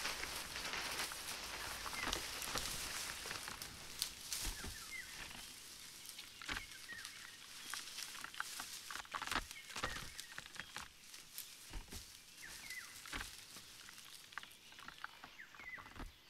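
Leaves rustling and twigs and small branches cracking as someone pushes through undergrowth and handles branches, busy at first, then sparser sharp snaps and clicks.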